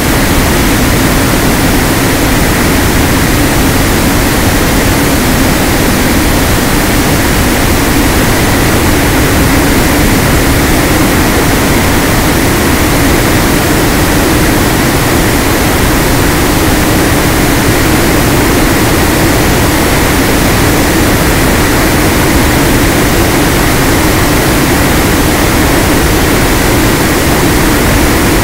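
Wind rush and propeller drone of a small RC aircraft in flight, picked up by its onboard camera: a steady loud hiss with a low hum under it.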